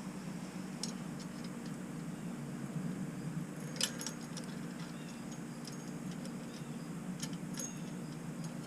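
Light metallic clicks and clinks of bolts and small bike parts being handled, one sharper clink about four seconds in, over a steady low hum.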